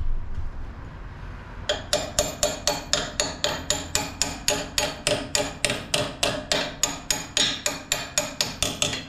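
Rapid metal-on-metal hammer blows on a steel front-suspension part of a Hummer H3, about four sharp, ringing strikes a second, starting about two seconds in and keeping an even pace to the end.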